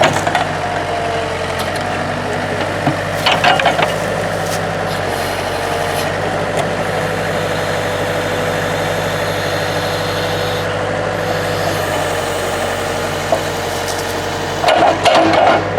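Engine of heavy land-clearing machinery running steadily, with short bursts of cracking and clatter about three seconds in and again near the end.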